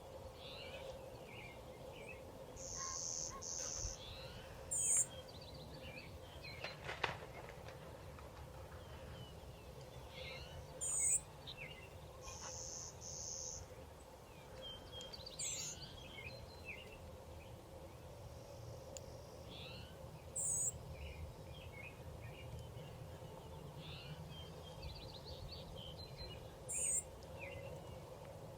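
Wild songbirds calling. A high, thin call repeats about every five or six seconds, a short buzzy trill comes three times, and scattered chirps sound over a faint steady background hum.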